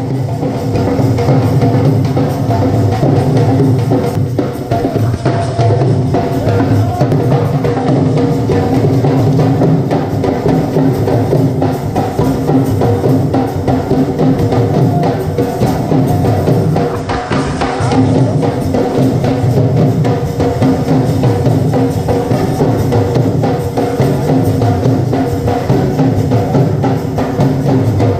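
Dhol drums played for dancing, a loud continuous beat, with steady held tones of a melody instrument over it.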